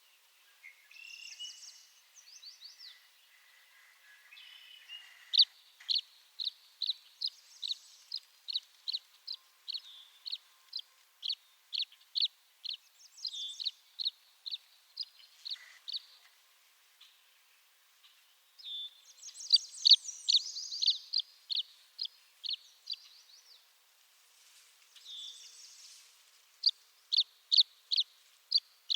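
Tree swallows calling: long runs of short, high chirps at about two to three a second, broken by liquid, gurgling warbles near the start, about two-thirds of the way through and near the end.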